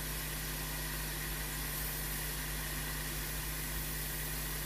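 Steady low hum and hiss of room tone, unchanging throughout; the soldering itself makes no distinct sound.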